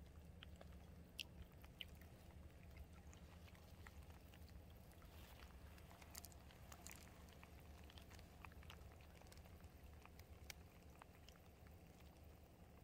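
Near silence: a shallow gravel-bed stream faintly trickling, with scattered small ticks over a steady low hum.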